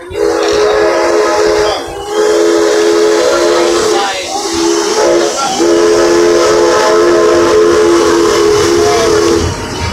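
Steam locomotive whistle blowing a chord of several notes in a series of blasts, the last one held about four seconds, with a hiss of steam behind it.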